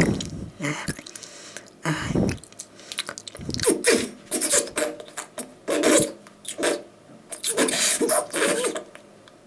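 A man making a run of strange mouth and throat noises: short, sharp, breathy bursts one after another with brief pauses between, some with a little pitch to them.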